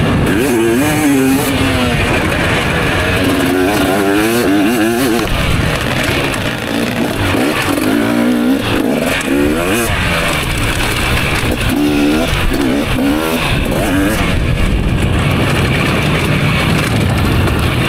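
Motocross bike engine revving up and dropping off again and again through gear changes and corners on a full-throttle lap, heard from on board the bike.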